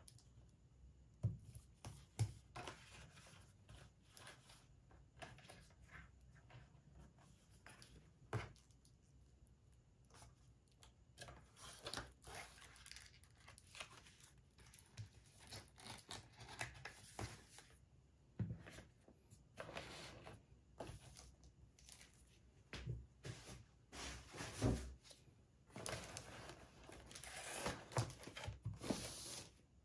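Faint rustling of plastic sleeves and cardboard packaging being handled, with a few light knocks as boxes are moved and set down on a desk.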